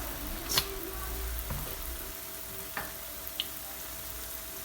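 Jalebi batter deep-frying in hot oil: a steady sizzle, with a short clink about half a second in.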